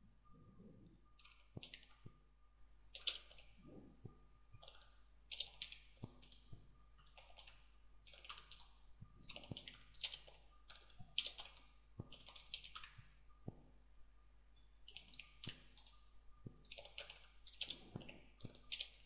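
Computer keyboard typing, faint: irregular runs of keystroke clicks with short pauses between them.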